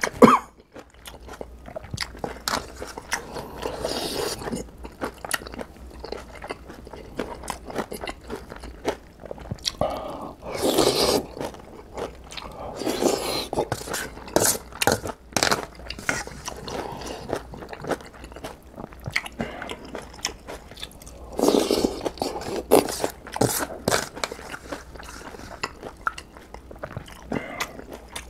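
Close-miked eating sounds of a man chewing ramen noodles and kimchi: wet mouth clicks and smacks throughout, with a few louder slurps of about a second each.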